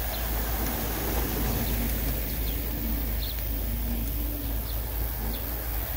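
Steady low rumble of wind on the microphone, with pigeons cooing softly in a string of short rising-and-falling calls.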